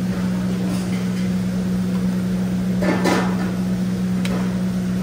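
Steady low hum of restaurant kitchen and buffet equipment, with a short clatter about three seconds in and a sharp click about a second later.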